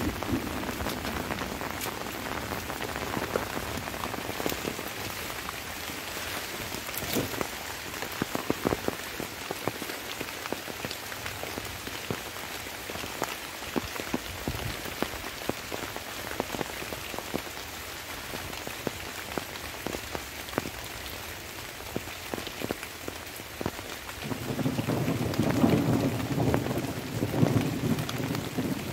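Light rain falling steadily, with many sharp drops ticking close by. Near the end a low rumble of thunder swells up and grows louder.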